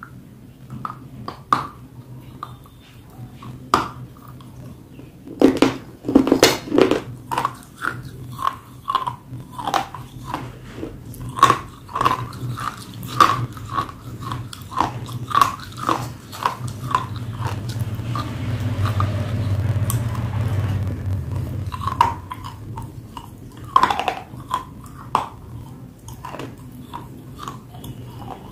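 Biting and chewing dry clay close to the microphone: crisp crunches come in quick runs, loudest in a dense cluster about six seconds in, with a softer grinding stretch about two-thirds of the way through.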